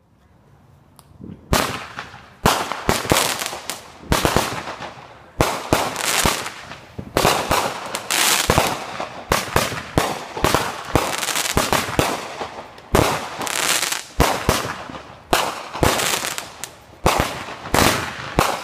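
Aerial fireworks going off in quick succession: a dense string of sharp bangs with crackling between them, starting about a second and a half in.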